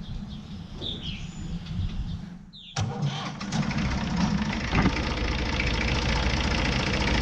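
Massey Ferguson 35's three-cylinder Perkins diesel engine starting about three seconds in and then running steadily, a little louder toward the end, just after a new fan belt has been fitted and tensioned. Birds chirp at the start.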